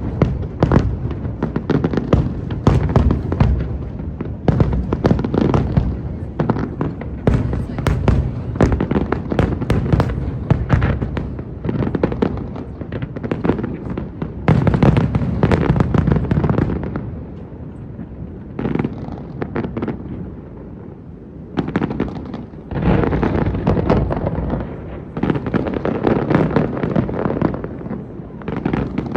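Aerial fireworks going off in rapid, dense volleys of bangs and crackles. They thin out for a few seconds past the middle, then pick up again.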